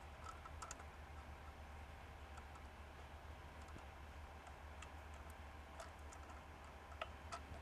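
Faint, scattered clicks of plastic wire nuts and wire being twisted and handled while an exterior light fixture's leads are joined, over a low steady hum; two slightly louder clicks come near the end.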